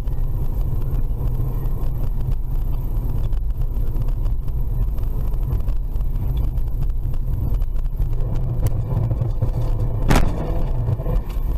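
A moving car's steady low rumble of engine and road noise, with a single sharp knock about ten seconds in.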